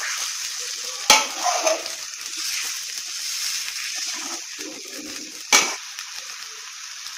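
Eggs with onions and green chillies sizzling steadily in a hot metal pan as a metal spatula stirs and scrambles them, with two sharp clinks of the spatula against the pan, about a second in and about five and a half seconds in.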